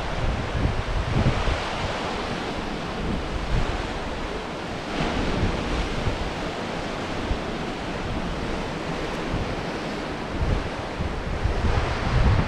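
Steady rushing noise of wind and heavy rain, with gusts buffeting the microphone in low rumbles now and then, strongest near the start and again near the end.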